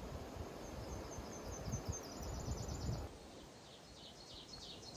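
Small songbirds singing: quick runs of short, high, repeated chirping notes over a low rumbling outdoor noise that changes abruptly about three seconds in.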